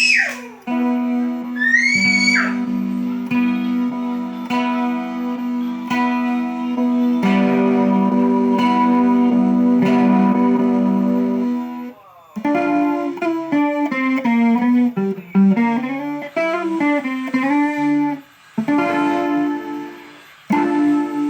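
Guitar played through an effects unit: long held notes with upward string bends near the start, then a quicker run of gliding melodic notes from about halfway through, with short breaks between phrases.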